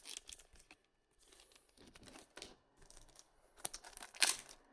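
Trading cards and their pack wrapping handled by hand: a string of short crinkling rustles, the loudest two near the end.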